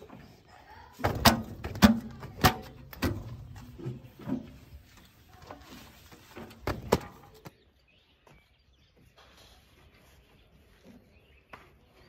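Sharp knocks and rubbing as a cloth is wiped and pressed over a tractor's painted metal bonnet and dashboard, loudest in the first three seconds and again about seven seconds in, then only faint background.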